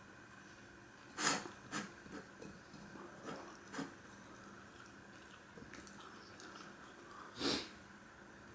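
Close-miked eating sounds: quiet chewing and mouth noises, with a handful of short, sharp bursts, the loudest about a second in and another near the end.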